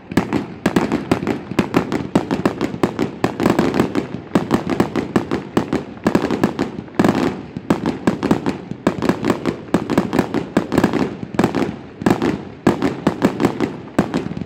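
Aerial fireworks bursting in a rapid, nearly continuous string of bangs and cracks, several a second, with brief lulls about seven and twelve seconds in.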